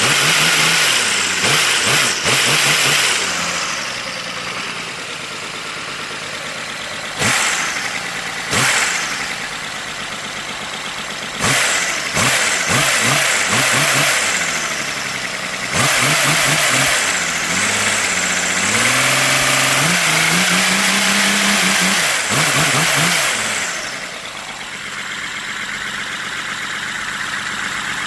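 3D-printed inline-six engine running on compressed air, its hissing exhaust chuffing. It surges louder several times as the engine speeds up and slows, with its pitch rising and falling, then settles to a softer steady run near the end.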